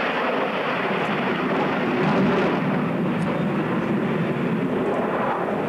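Formation of Sukhoi Su-27 fighters flying past, the steady rushing jet noise of their twin Lyulka AL-31F turbofans, swelling slightly about two seconds in.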